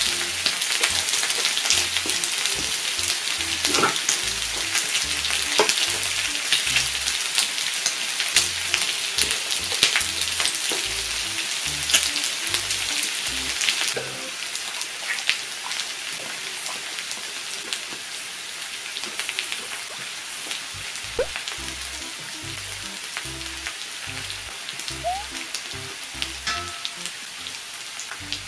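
Pork belly sizzling on a tabletop grill, a steady frying hiss with scattered sharp pops of spitting fat. It drops to a quieter sizzle about halfway through.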